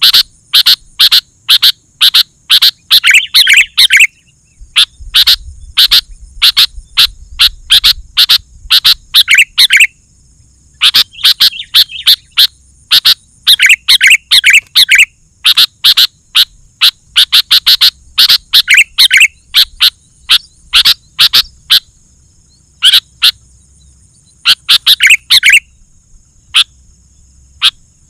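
Sooty-headed bulbul calling loudly and excitedly, rapid runs of short sharp notes lasting a few seconds each, broken by brief pauses. A faint steady high-pitched buzz lies underneath.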